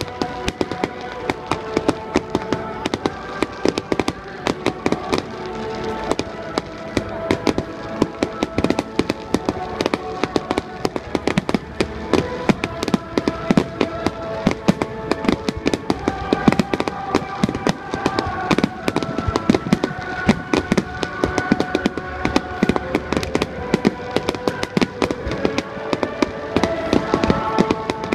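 Fireworks going off in a dense, continuous crackle of sharp reports, many each second, with louder bangs standing out. Under it runs music with long held notes that shift from one pitch to another, playing through outdoor loudspeakers.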